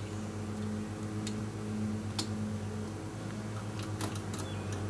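A few sharp metallic clicks and taps as a brake spring tool works the springs and hardware of a drum brake, over a steady low hum.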